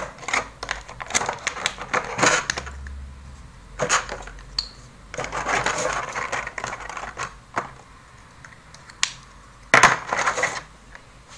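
Handheld electric nail file working the top coat off semi-permanent gel polish: irregular scratchy grinding with sharp clicks, strongest in two stretches past the middle.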